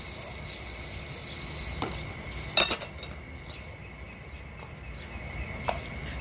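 A racehorse's hooves striking wet concrete and rubber mats as she is led at a walk: a few scattered, irregular clops, the sharpest about two and a half seconds in, over a steady hiss.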